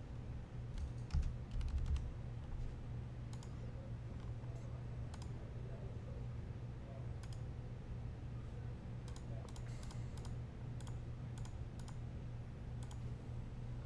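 Scattered keystrokes on a computer keyboard and mouse clicks, irregular and spaced apart, over a steady low hum.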